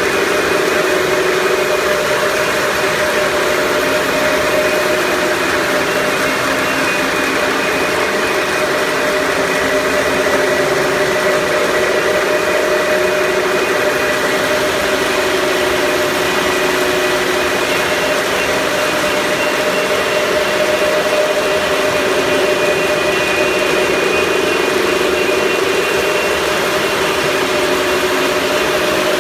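A machine running steadily, a constant hum with a few held tones and no breaks.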